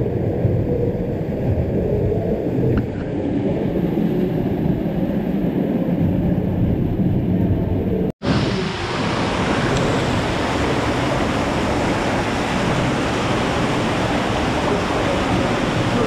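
Small waterfall rushing steadily close by. About halfway through the sound cuts out for an instant and comes back brighter and hissier.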